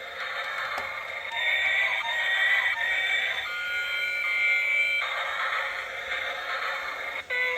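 Tinny electronic music and sound effects: a hissy noise with held beeping tones that change pitch every second or so.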